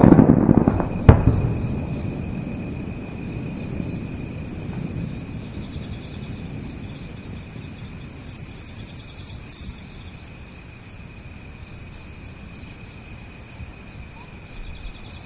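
Aerial firework shells bursting with deep booms at the start and one sharp bang about a second in, the rumble echoing and fading over several seconds. Then a steady high chirring of insects, with the level dropping about ten seconds in.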